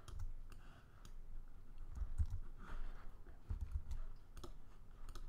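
Faint, scattered clicks of a computer mouse and keyboard, with a few soft low thuds.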